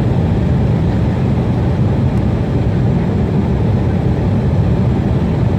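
Steady, loud low rumble of an Airbus A319's jet engines and rushing air, heard from inside the passenger cabin.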